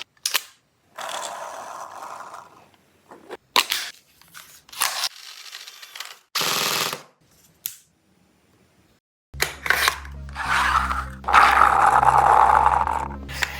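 Toy gun blasters clicking and firing short noisy bursts, with several sharp clicks between them. About nine seconds in, music with a steady bass line comes in under a longer, louder burst.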